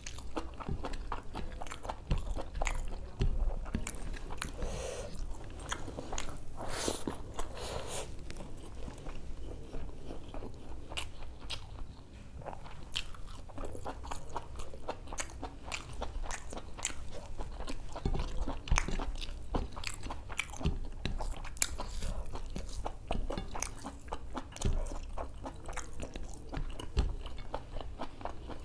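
Close-miked chewing: a steady run of wet mouth smacks, bites and crunches from someone eating spiced mutton intestine (boti) and khichdi by hand.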